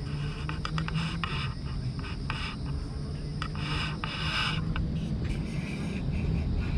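A hand stroking a brown-tabby-and-white cat's fur, rubbing sounds coming in repeated strokes over a low, steady purr from the cat.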